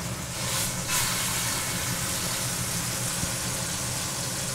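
Pork tenderloin sizzling as it sears in olive oil in a hot pan, the sizzle getting louder about a second in, over a steady low hum.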